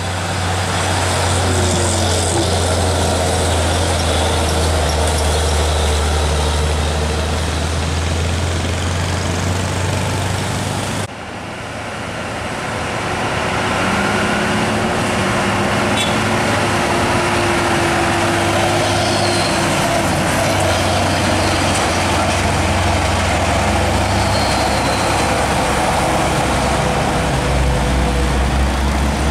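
Heavy diesel box trucks, an Isuzu and then a Hino 500, running at low revs as they pass close by, with a steady deep engine drone over tyre and road noise. About eleven seconds in, the sound cuts abruptly to the next trucks approaching, and a faint higher engine whine then holds for about twelve seconds.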